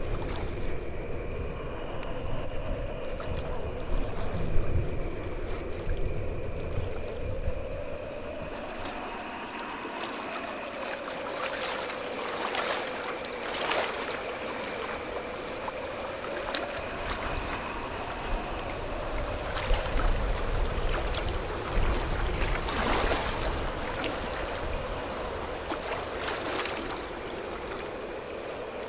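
Ambient water soundscape: flowing water with a low rumble that fades after the first several seconds, under sustained drone tones that slowly bend in pitch, with scattered sharp clicks.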